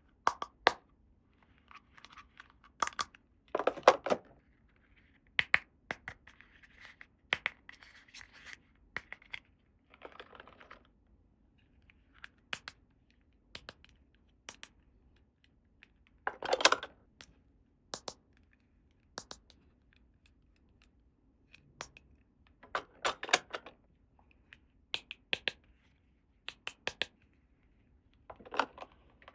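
Small plastic toy pieces being handled, giving scattered sharp clicks and taps. Several short rustling bursts of packaging come in between.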